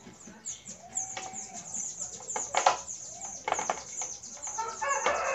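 A run of sharp clicks and knocks from hands working at a plastic solar charge controller mounted on a wooden wall, with small birds chirping throughout and a rooster starting to crow near the end.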